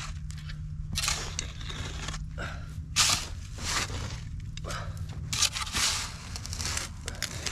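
Narrow trenching shovel scraping and scooping loose, dry dirt from the bottom of a shallow trench by hand: a string of irregular gritty scrapes.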